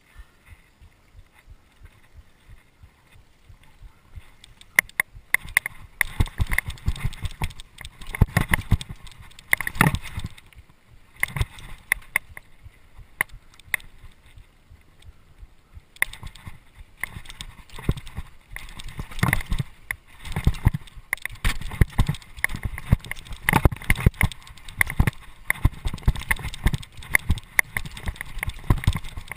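Mountain bike rattling over a rough dirt trail: rapid, irregular knocks and rattles from the bike jolting on the ground, starting about five seconds in, easing off for a few seconds in the middle, then going on.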